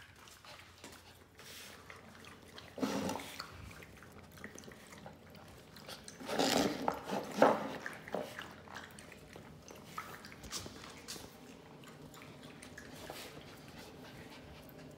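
A dog vocalizes briefly about three seconds in and again more loudly around the middle. Between these comes the faint wet lapping of a puppy drinking from a plastic water bowl.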